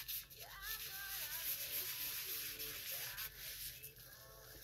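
A paper towel rubbed over wet watercolour on a paper envelope to blend the paint, a soft rubbing hiss that eases off about three and a half seconds in.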